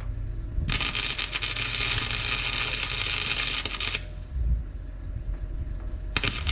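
Welder arc crackling and hissing as the radiator bracket is welded: one run of about three seconds, a pause, then a second run starting near the end.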